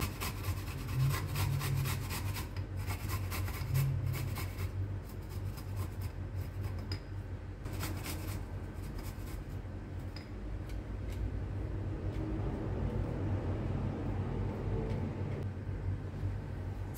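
Garlic cloves being grated on the fine side of a flat stainless-steel hand grater: a run of quick, repeated scraping strokes, strongest in the first few seconds and again about eight seconds in, fainter toward the end.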